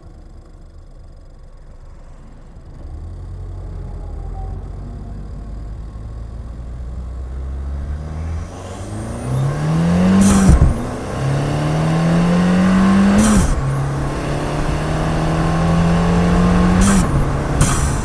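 Turbocharged 1.6-litre four-cylinder of a 2015 Ford Fiesta ST, with an aftermarket cold air intake, cruising low and quiet, then accelerating hard through three gears. The engine note climbs in pitch and drops at each upshift, with a short hiss at each shift and a high whistle rising after it.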